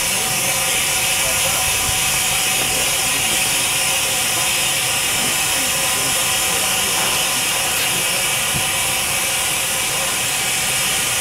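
Steam locomotive venting steam: a steady, loud hiss that holds unchanged throughout.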